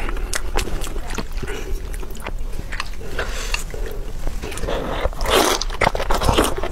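Close-miked eating: wet chewing and biting with many small clicks and smacks, then a louder slurp about five and a half seconds in as food is sucked in from a bowl of broth.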